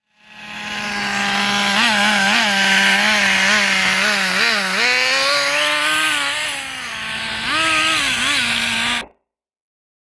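Small two-stroke glow-fuel engine of a nitro RC car running with a high buzz. It is blipped up and down several times, then held at higher revs as the car drives, with a few more blips. The sound cuts off suddenly near the end.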